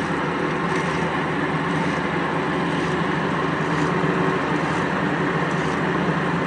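Blanchard rotary surface grinder running steadily, its grinding wheel sparking out on a cast hub cap's face with the coolant shut off, so the high spots are ground flat. A faint swish repeats about once a second.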